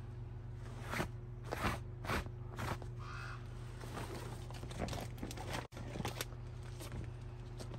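Gloved hand wiping and handling a fabric tool roll: a series of short cloth-on-fabric rustling and brushing strokes over a steady low hum. A faint bird call about three seconds in.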